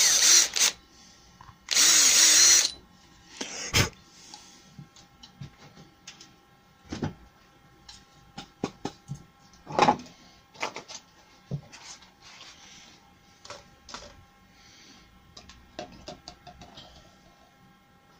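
A cordless drill runs in two short bursts of about a second each, its bit in the small hole of a white plastic cup lid to clear crud from it. A sharp click follows, then scattered light clicks and knocks of plastic cups and a paper paint strainer being handled.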